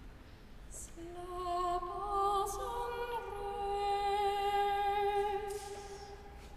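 A woman's solo voice singing a slow, sustained lullaby melody a cappella, with vibrato. It starts about a second in, holds long notes and fades away near the end.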